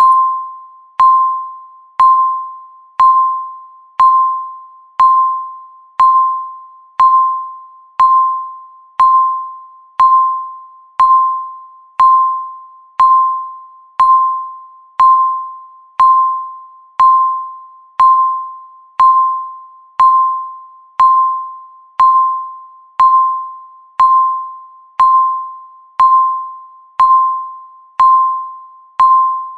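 Countdown timer beeping once a second, about thirty beeps in a row. Each beep is the same single electronic tone, struck sharply and fading away before the next.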